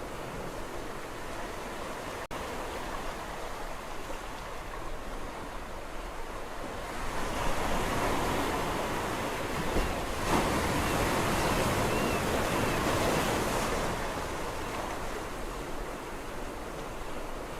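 Sea waves washing onto a shore: a steady surf hiss that swells as a wave breaks and rushes in about seven seconds in, then ebbs away.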